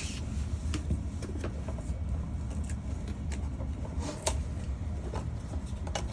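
Scattered light clicks and taps of refrigerator parts and screws being handled during disassembly, over a steady low hum; one sharper tap about four seconds in.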